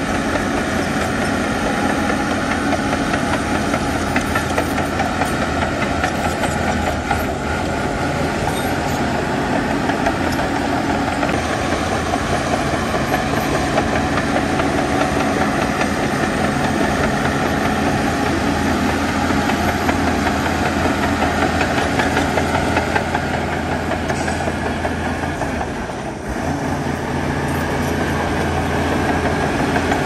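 Diesel engine of heavy earthmoving machinery running steadily under work, with a brief small drop in level near the end.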